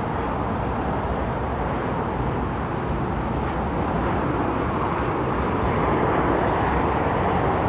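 Jet airliner engine noise: a steady, dense rush that grows slightly louder about six seconds in.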